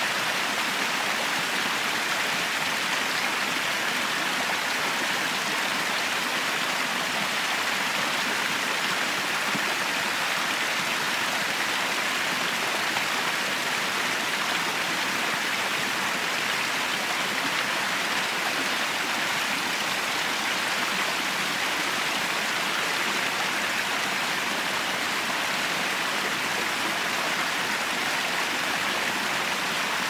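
Water from small waterfalls pouring over rock ledges into shallow pools: a steady, even rush.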